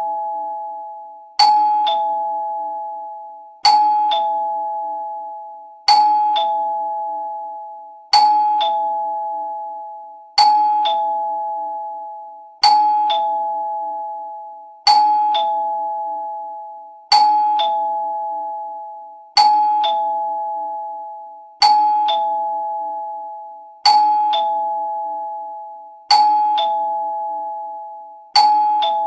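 Two-tone doorbell chime ringing "ding-dong" over and over: a higher note, then a lower one, each fading away, repeated about every two and a quarter seconds, thirteen times.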